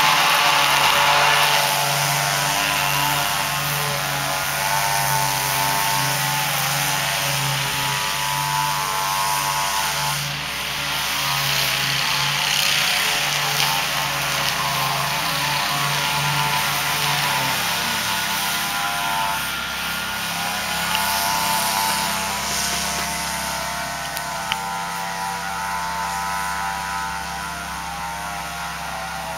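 Stand-up commercial lawn mower, which the uploader takes for a Great Dane, running steadily while mowing. Its engine pitch dips and recovers a few times as it works across the lawn.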